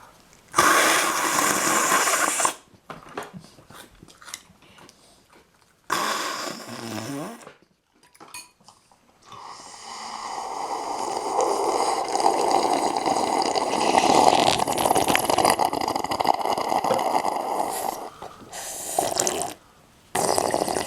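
Chicken noodle soup being slurped: loud sucking slurps, one near the start, another about six seconds in, and a long drawn-out slurping stretch from about ten seconds in that lasts some eight seconds, with short slurps near the end.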